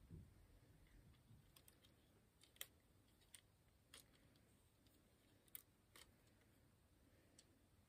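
Near silence broken by faint, irregular clicks of plastic Lego pieces being handled and pressed onto a toy car model during a repair.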